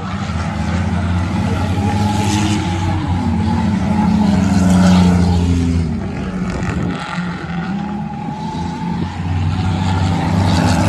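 A pack of V6 stock cars racing around a speedway oval, several engines running hard at once. The sound swells as the cars come past about five seconds in, eases off, then builds again near the end.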